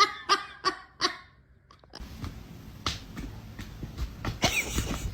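An animal's short calls, four in quick succession, then scattered knocks and a couple of brief high cries.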